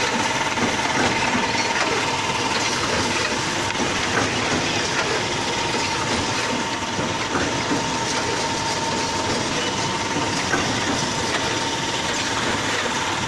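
Steady running noise of an automatic double-loop wire binding machine and factory equipment: dense mechanical clatter with a steady whine.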